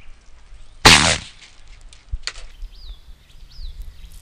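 Storm 360 gas airsoft grenade going off: one sharp blast of gas about a second in, fading quickly, with a few light ticks afterwards.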